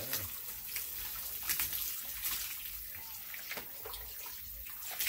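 Water splashing and dripping as a hanging pig carcass is doused by hand from a bucket, with a few louder splashes.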